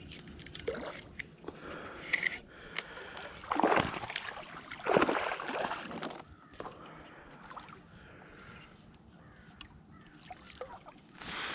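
Water sloshing and splashing around a kayak, with two louder swishes about four and five seconds in and scattered small knocks.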